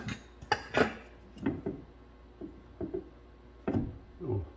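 A series of irregular metal clunks and knocks from a Chevy Astro's rear differential carrier and ring gear being rocked and pulled by hand in the open axle housing.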